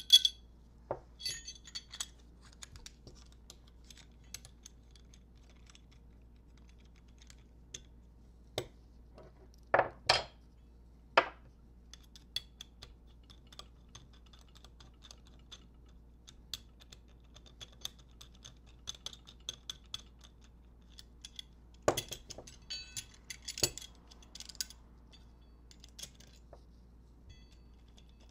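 Light metallic clicks and clinks of small screws and hardware being handled and fitted into motorcycle clip-on handlebar clamps, with a few louder knocks about ten seconds in and again a little past twenty seconds.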